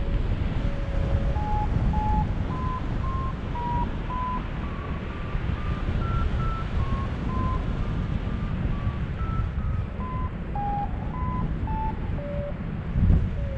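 Paragliding variometer beeping in a string of short tones, the pitch stepping up to its highest about six seconds in and then back down near the end: the climb rate is rising and then easing off. Heavy wind noise on the microphone runs underneath.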